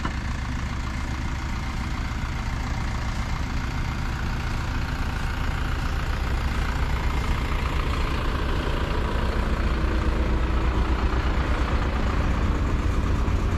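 An engine idling steadily, getting a little louder toward the end.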